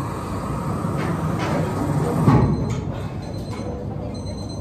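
Steady low rumbling background noise of a busy gym, with a brief louder bump about two seconds in.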